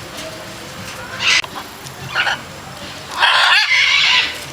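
A large bird's harsh, screechy calls: a short one about a second in, another about two seconds in, and a longer call of about a second near the end.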